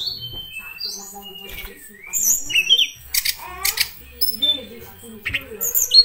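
Caged tledekan, a blue flycatcher, singing. It gives clear, flute-like whistled notes that step down in pitch, then rising and falling glides and a few harsh, rasping notes about three seconds in.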